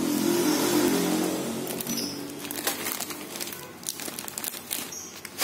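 Clear plastic snack bag full of corn chips crinkling and crackling as it is handled, loudest in the first couple of seconds and then in scattered crackles.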